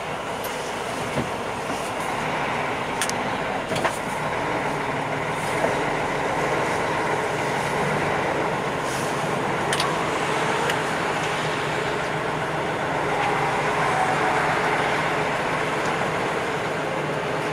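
Tractor-trailer truck running at low speed, engine and road noise heard from inside the cab, with a few light clicks.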